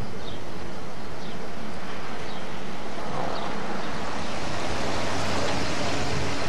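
Steady rushing road and engine noise of a car driving slowly through town, heard from inside the cabin.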